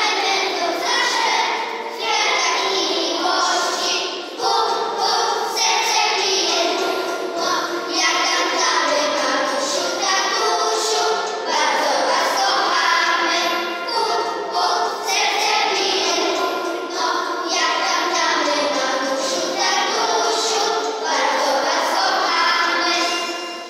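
A group of children singing together as a choir. The singing stops near the end.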